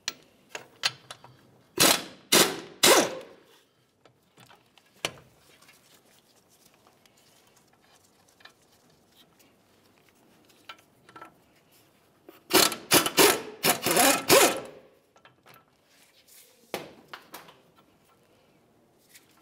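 Ratchet clicking as brake caliper mounting bolts are loosened, in two bursts: a few strokes about two seconds in and a longer run of clicking from about twelve to fourteen and a half seconds in. Light rubbing and handling of metal parts in between.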